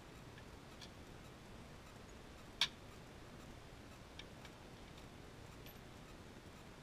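Small clicks of tweezers and tiny watch parts, a Gruen 157's mainspring barrel and its lid, being set down on a bench mat. There is one sharp click about two and a half seconds in and a few faint ticks around it.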